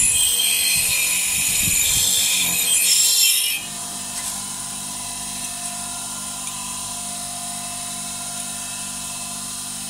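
A small 370-watt bench grinder with a wire brush wheel scrubbing grime off an aluminium cylinder head, a harsh scraping for about three and a half seconds. Then the grinder runs on unloaded with a steady hum.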